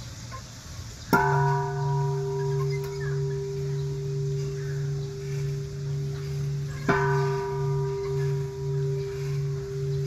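Large hanging temple-style bell struck twice with a wooden striker, about a second in and again about seven seconds in. Each strike rings on long, with a low hum that pulses steadily under a clear middle tone while the higher overtones fade first.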